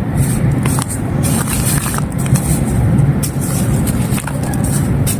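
Dry clay and broken claypot pieces crumbling: a continuous gritty crunching with many small sharp cracks scattered through it.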